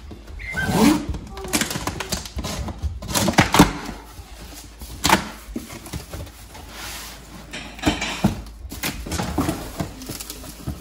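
Cardboard shipping box being opened by hand: tape pulled from the seam and the flaps folded back, with scattered scrapes, knocks and cardboard rustling. Near the end, plastic wrapping inside the box rustles.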